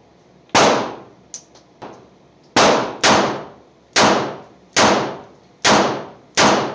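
Colt Detective Special .38 snub-nosed revolver firing a string of sharp shots, about seven, spaced half a second to a second apart, each trailing off in a short echo.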